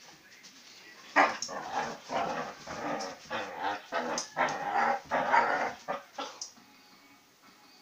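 A dog growling in play with a chew toy in its mouth: a string of throaty, word-like vocal bursts, starting about a second in and stopping about six and a half seconds in.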